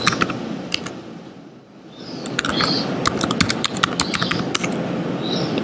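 Computer keyboard typing, with quick key clicks in two runs, the second starting about two seconds in, as a login password is typed. A steady hiss runs underneath.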